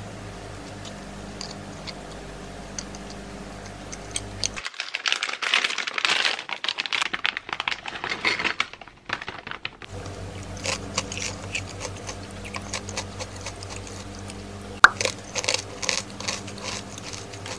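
A plastic snack bag crinkles for about five seconds. Then come scattered crisp crunches and clicks of ridged potato chips being picked up and eaten, over a steady low hum.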